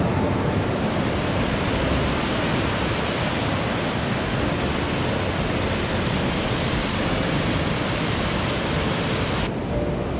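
Steady, loud rush of fast-flowing water, like a mountain creek tumbling over rocks. Near the end the hiss abruptly turns duller.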